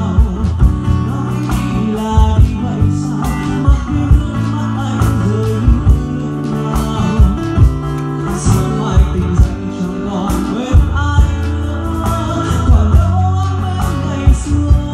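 Live acoustic pop song: a man sings over a strummed acoustic guitar, with a steady beat struck on a cajón.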